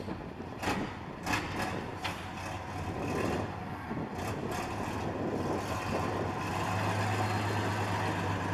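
Fiat TM69 6x6 military truck's diesel engine running, growing louder about two-thirds of the way through as the truck drives forward. A few short sharp clicks or hisses sound over it near the start.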